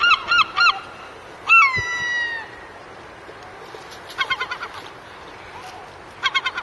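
Gulls calling: a fast series of short calls, about four a second, then one long call that falls in pitch, followed later by two fainter bursts of quick repeated calls.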